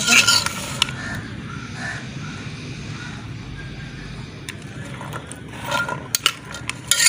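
A spoon stirring boiled chickpeas in a metal bowl, clinking and scraping against the bowl at the start and again near the end, with a quieter stretch between.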